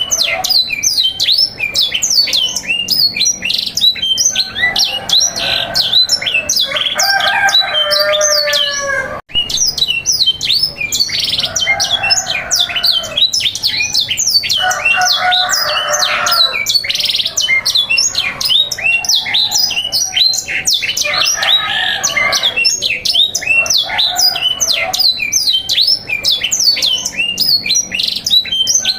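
Canaries singing continuously: a fast, unbroken run of high descending chirps, with lower, fuller warbled phrases coming in every few seconds. This is recorded canary song used to teach and stir young canaries into singing.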